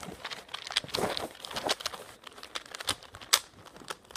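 Plastic Megaminx twisty puzzle being scrambled: an irregular run of quick clicks and clatters as its faces are turned by hand.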